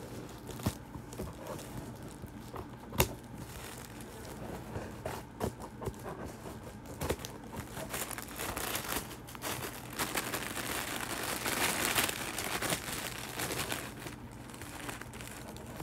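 Tissue paper wrapping on a box crinkling and tearing as it is cut and pulled open, with a few sharp clicks.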